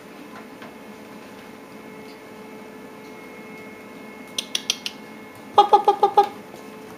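Wire dog crate rattling as a puppy climbs and scrabbles on its bars: a few light metallic clicks, then a louder quick rattle of about five ringing knocks near the end.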